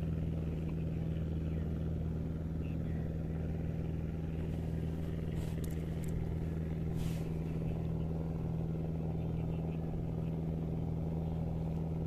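An engine running steadily, a low even hum with no change in speed.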